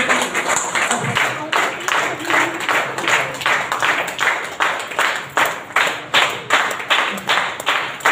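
Audience clapping together in a steady rhythm, about two to three claps a second, which becomes regular about a second and a half in.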